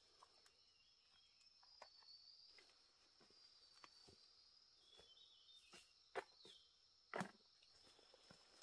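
Faint steady high-pitched insect drone, with scattered soft clicks and snaps and two louder sharp knocks about six and seven seconds in.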